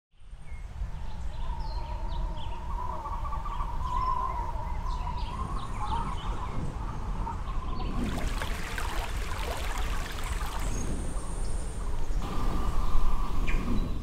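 Birds chirping and calling over a low steady rumble. About eight seconds in, a rushing hiss like a running stream comes in under the bird calls.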